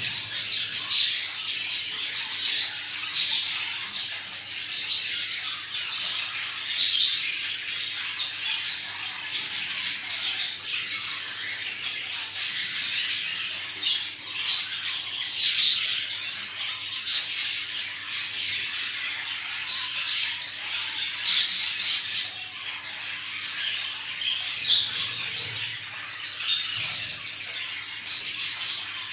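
A flock of budgerigars in breeding cages chattering and calling continuously, many birds over one another, with sharper, louder calls every few seconds. This is the flock chatter used to bring budgies into breeding condition.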